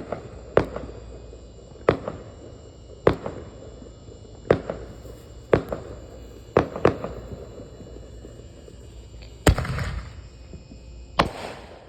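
Consumer fireworks going off: a string of sharp bangs about a second apart, then two louder, longer blasts with a hissing crackle near the end.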